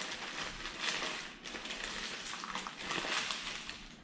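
Paper burger wrapper rustling and crinkling as it is handled, with two louder swells, about a second in and about three seconds in.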